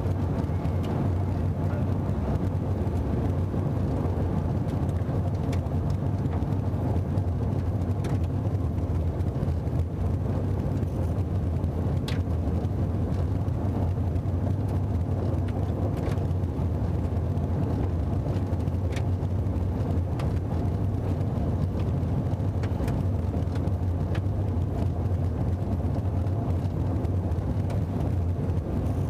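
Steady engine and tyre drone inside the cabin of a manual Subaru cruising on a dirt road, with a few faint ticks scattered through it.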